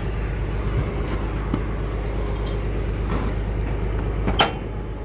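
Tractor engine running steadily at low revs, with a few light knocks and clicks over it; the sharpest knock comes near the end.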